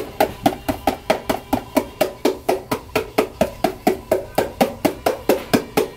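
Rapid, even tapping: about four or five sharp knocks a second, each with a short ring that drops in pitch.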